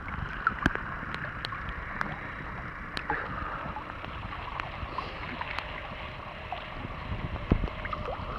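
Sea water sloshing and gurgling around a boat, with scattered small clicks and knocks.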